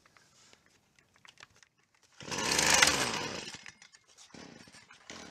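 Stihl string trimmer's small two-stroke engine fires about two seconds in, runs for about a second and a half rising and then falling in pitch, and dies. A fainter rasping sound follows near the end.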